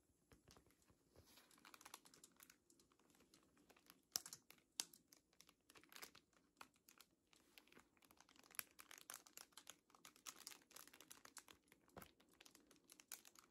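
Fingers tapping on sticker sheets and crinkling them: many soft, irregular taps and light crinkles.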